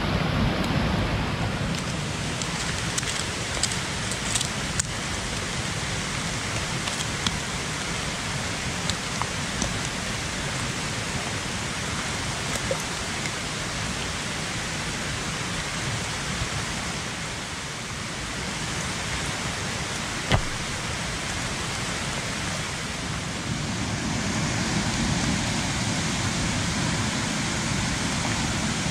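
Heavy typhoon rain falling steadily as a dense, even hiss, with scattered drop ticks and one sharp tap about two-thirds of the way through. It grows a little louder near the end.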